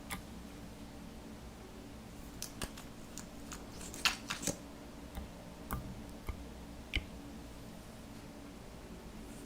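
Slime being worked by hand, making irregular small sticky clicks and pops, with a cluster of louder ones about four seconds in, over a faint steady hum.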